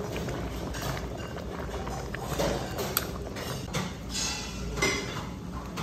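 A metal ladle stirs thick boiling stew in a metal pot, with a few scrapes and clinks against the pot and one sharp click about three seconds in, over a steady low hum.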